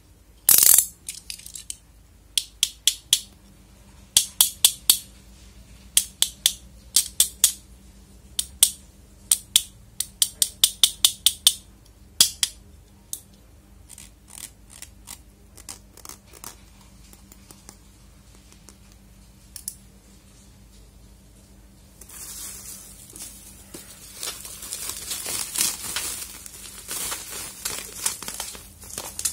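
Sharp clicks in quick runs of three or four as small plastic parts are handled, thinning out midway. About three-quarters through, steady crinkling and crackling of bubble wrap around a boxed webcam takes over.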